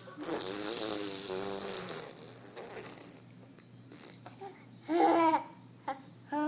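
A baby babbling: a long run of wavering babble in the first two seconds, then a short, loud pitched call about five seconds in and another near the end.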